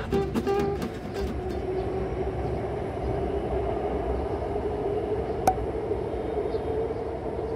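Guitar music fading out in the first second, then a steady mechanical rumble with a low hum. A single sharp click about five and a half seconds in.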